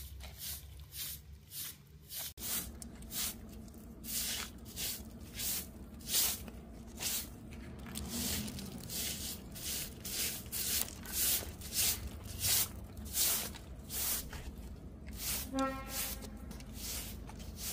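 Short-handled straw broom sweeping a concrete path strewn with dry leaves and grit, in brisk repeated strokes somewhat under two a second.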